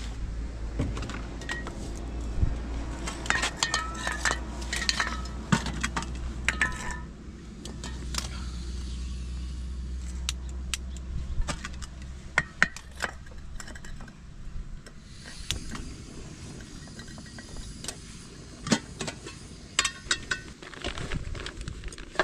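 Metal cookware clattering: a wok and a portable gas stove being handled, in a run of sharp knocks and clinks, several of them ringing briefly. A low wind rumble on the microphone dies away after about seven seconds.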